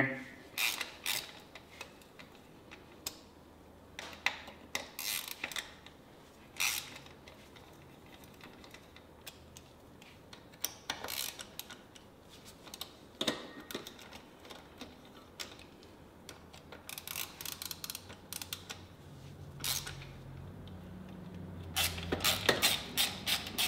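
Hand wrench working the rear axle carrier bolts of a Yamaha YFZ450R: scattered metallic clicks and clinks in short runs, busiest near the end, as the bolts are backed off a couple of threads to slacken the carrier for a chain adjustment.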